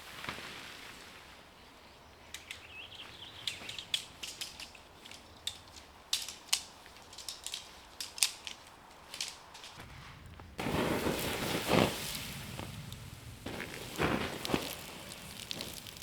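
Camp gear being handled and packed up: scattered clicks and knocks, then louder crunching and rustling starting about ten seconds in.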